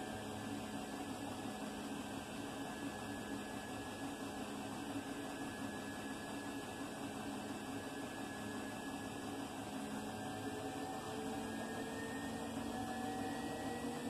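Indesit front-loading washing machine running mid-cycle: a steady motor hum with several pitched tones that drift slowly in pitch, growing slightly louder near the end.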